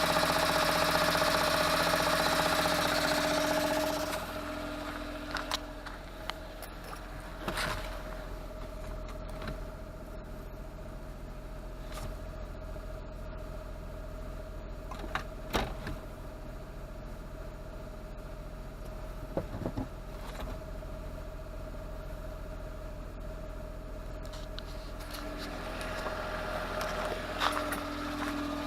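Autozam AZ-1's Suzuki three-cylinder turbo engine idling with a harsh rattle from around the gearbox. The owner notes the rattle comes mostly when cold and stops when the clutch is pressed. About four seconds in the rattle drops away, leaving a quieter steady idle with a few sharp clicks, and it builds back up near the end.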